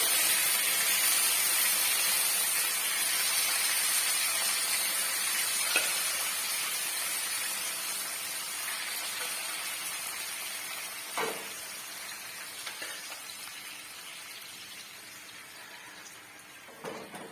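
Beef curry sizzling in hot coconut oil in an iron tawa, the sizzle fading steadily, with a few light knocks.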